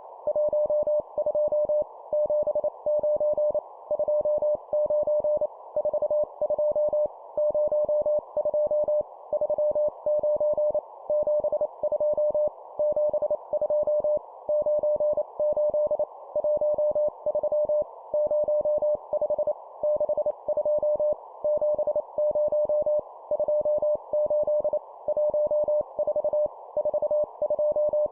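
Morse code (CW) sidetone, a single tone near 600 Hz, keyed at 25 words per minute and sending two-digit number groups. The groups are split by short gaps, about one a second, over a faint hiss.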